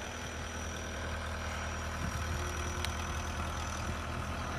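Skid steer engine running steadily with a low, even hum.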